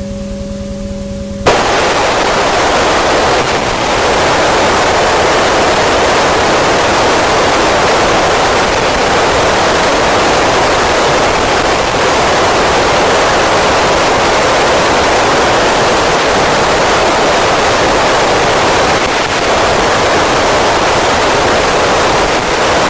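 FM receiver static: the Icom ID-5100's loud, steady hiss with the squelch open and no signal, the AO-27 satellite's downlink fading out at the end of its pass. It starts with a click about a second and a half in, after a brief low steady hum.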